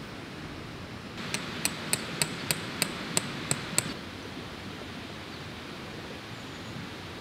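A hammer driving a metal tent stake: about nine sharp, ringing strikes at roughly three a second, then stopping. A steady outdoor hiss lies underneath.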